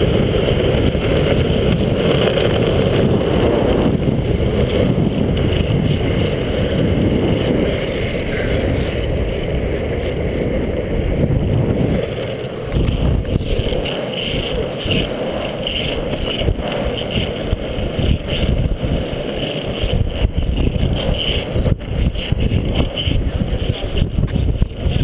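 Longboard wheels rolling over an asphalt path: a steady low rumble, with a few sharp clicks in the second half.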